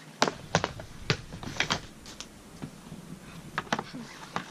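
Hockey stick blade and puck clacking on plastic dryland tiles in quick stickhandling taps, a few a second in uneven bursts.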